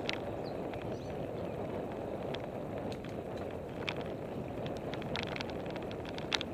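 Salsa El Mariachi Ti mountain bike rolling along a dirt singletrack: a steady low rush from the tyres and passing air, with scattered sharp clicks and rattles from the bike over bumps.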